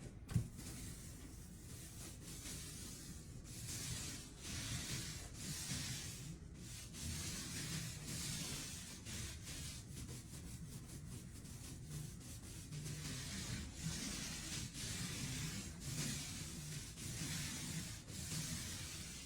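Hand sanding of wood: a steady series of back-and-forth abrasive strokes with sandpaper, scratching at roughly one stroke a second.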